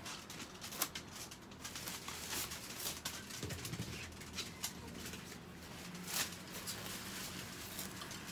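Scattered light knocks and rustles as Chihuahuas move about in wire crates and bare feet shift on a plastic tarp, with a faint low hum through the middle.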